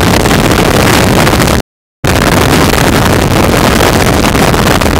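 Tornado wind blasting a surveillance camera's microphone: a loud, distorted rushing noise with no tones in it. About a second and a half in it cuts out completely for a split second, a dropout in the recording.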